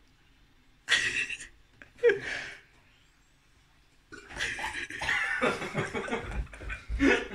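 People coughing, spluttering and laughing in reaction to a foul-tasting shot: two short coughs or gasps about a second and two seconds in, then about three seconds of coughing and laughter.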